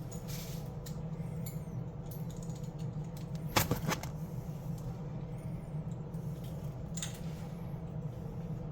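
Light metal clinks and handling noises from tools and faucet fittings being worked, over a steady low hum, with one louder knock about three and a half seconds in.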